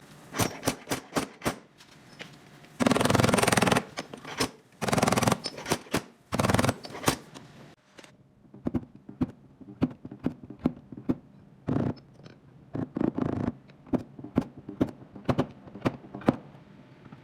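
Hand work on a car's body panels: a run of irregular clicks and knocks, with several short bursts of scraping or rasping, the longest about a second.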